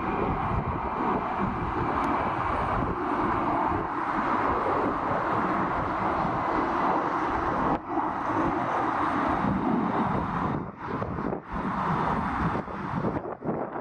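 Airbus A300 freighter's jet engines running at high power, a steady engine noise, with strong wind buffeting the microphone in a low rumble that dips briefly a few times in the second half.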